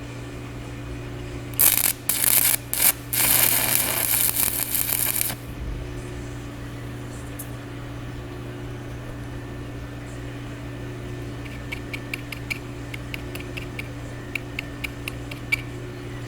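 Electric arc welding on a driveshaft: a few seconds of loud crackling, broken by short gaps, start and stop like tack welds. Later there is a run of light, sharp clicks, and a steady low hum runs underneath.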